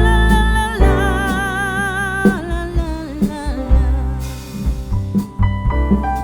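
Background music: a singer holds a long note with vibrato over an instrumental accompaniment with a low bass.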